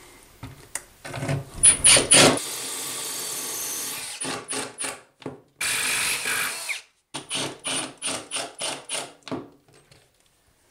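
Power drill run in bursts: a few quick blips, two steady runs of a second or so, then a string of short trigger pulses about four a second, each with a high motor whine, fastening a plastic toilet flange to a tile floor.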